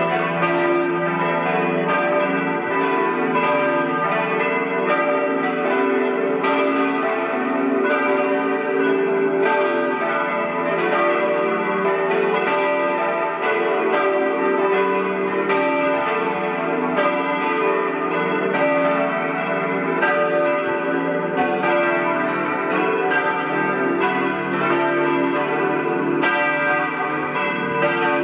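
A partial peal of four church bells, tuned D, E, F-sharp and B and cast in 1922 by Colbacchini of Trento and Cavadini of Verona, ringing together to call people to a church service. Their strikes overlap without a break.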